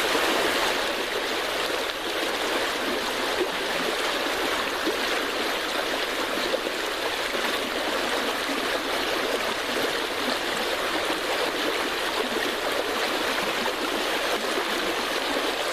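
Creek water flowing and rushing steadily, an even noise without breaks.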